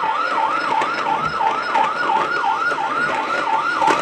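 Electronic siren of a battery-powered toy fire truck: a fast yelp sweeping up and down about four times a second, with small clicks scattered through it.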